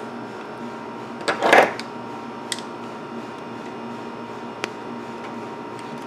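Fingers handling wires inside a metal amplifier chassis: a short rustling scrape about a second and a half in and two small clicks later. A steady hum runs underneath.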